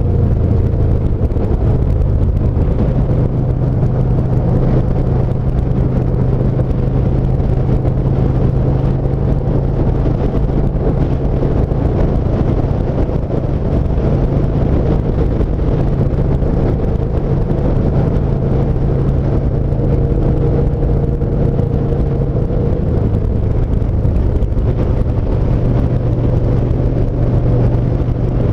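2017 Yamaha SCR950's air-cooled V-twin running steadily at cruising speed under a constant rush of road and wind noise. The engine note eases slightly and picks up again near the end.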